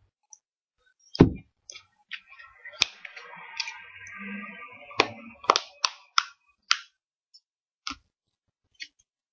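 A plastic chocolate-milk bottle being gripped and handled: a string of sharp knocks and clicks, the loudest about a second in, with a stretch of crackling from about two to five seconds.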